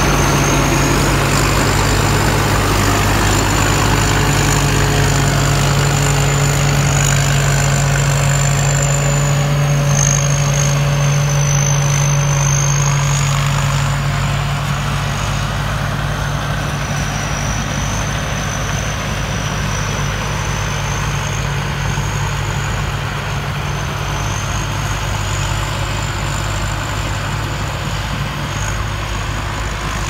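2017 Sitcharoen rice combine harvester running while it harvests: a steady low engine drone with a high whine above it that wavers in pitch. The sound drops a little about fourteen seconds in as the machine moves off across the paddy.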